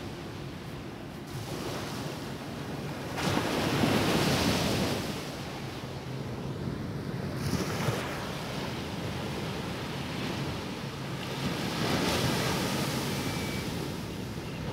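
Small waves breaking and washing up a sandy beach in a steady hiss of surf, swelling louder twice: about four seconds in and again about twelve seconds in.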